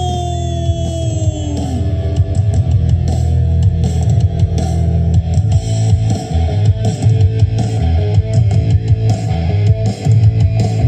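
Rock music with electric guitar and drums: a long held guitar note slides down in pitch over the first two seconds, then a busy drum beat drives on under the guitar.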